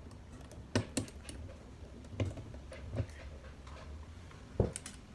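Irregular clicks and knocks of a phone clip mount being screwed onto a flexible tripod's ball head, with about half a dozen separate clicks and the loudest knock near the end.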